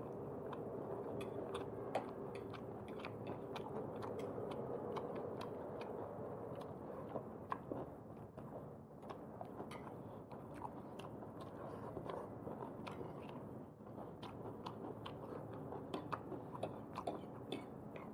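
Close-miked chewing of a person eating: many small, irregular wet clicks and smacks of the mouth, over a steady low background hum.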